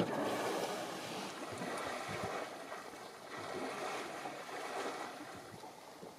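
Water splashing and sloshing as an African elephant works its trunk through the shallow river water and plants, in two swells.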